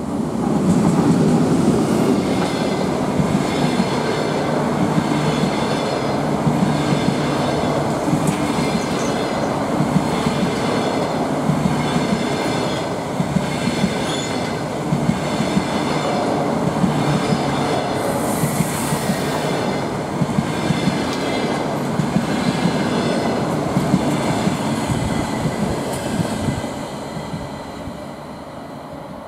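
ЭП20 dual-system electric locomotive and its double-deck passenger coaches passing: a steady rumble of wheels on rails with rapid clicking over the rail joints and a high ringing tone over it. The sound fades as the last coach goes by near the end.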